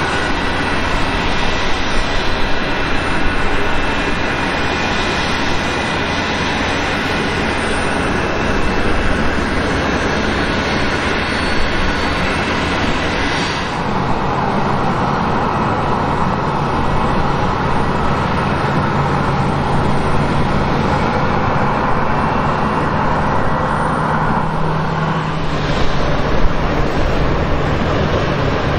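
Jet airliner engines running on the ground, a steady, loud rush with a faint steady whine. The sound changes abruptly about 14 seconds in and again near the end.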